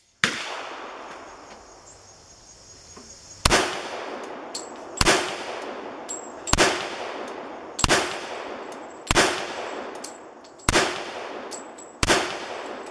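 An original Colt 1911 .45 ACP pistol firing slow aimed shots, about one every second and a half, each shot echoing off the covered range. Light metallic clinks between the shots, likely ejected brass landing.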